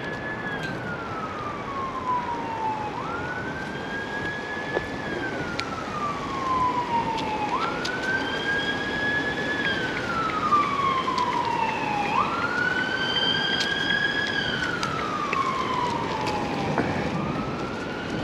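Emergency vehicle siren in a slow wail: each cycle rises quickly, holds briefly, then falls slowly, repeating about every four and a half seconds and growing a little louder, over a steady rush of background noise.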